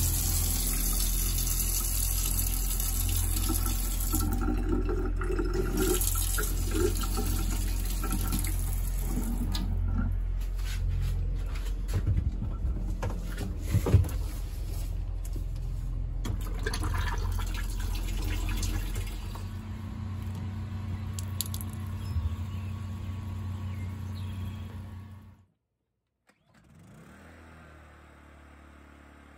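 Water running from an RV galley faucet into a stainless steel sink over a steady low hum, then a sharp knock and water as the RV toilet is opened and flushed.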